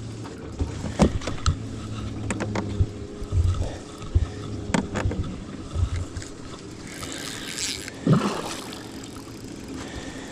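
Knocks and scrapes of handling on a fishing boat, over a low steady hum of a small electric motor or pump that fades after about three seconds, with a brief rush of water-like noise near eight seconds in.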